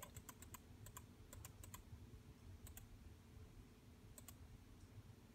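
Faint, irregular clicks from a laptop being worked: a quick run of clicks in the first two seconds, then two pairs later on.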